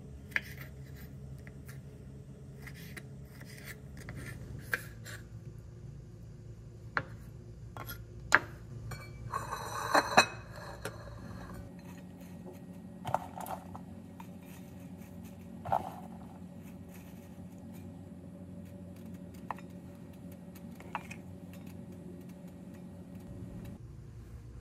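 Kitchen prep handling sounds: scattered light knocks and clinks of dishes and utensils being picked up and set down, with a short clatter about ten seconds in, over a steady low background hum.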